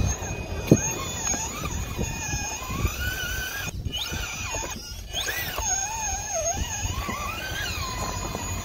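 Electric motor of a 1/10-scale RC rock crawler whining as it crawls over boulders, its pitch wavering up and down with the throttle, with scattered knocks of tyres and chassis on rock, the sharpest under a second in.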